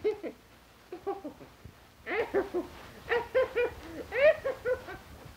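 A string of short, squeaky, cat-like vocal calls, each rising and falling quickly: a couple at the start, then a rapid chattering run from about two seconds in.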